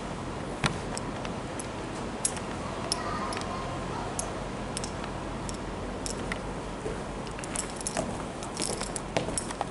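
Steady background room noise with scattered light clicks and taps, which crowd together near the end.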